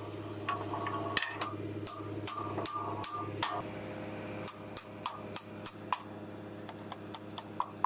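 Irregular sharp metal clinks and knocks, a few each second, from work on the retainer bolt of a CAT 966H wheel loader's bucket pivot pin, over a steady low hum.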